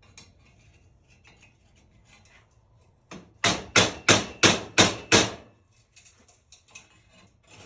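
Hammer blows on a muffler pipe: faint clicks and scrapes at first, then seven sharp strikes in quick succession, about three a second, about three seconds in, knocking at a stuck old centerpiece to work it loose.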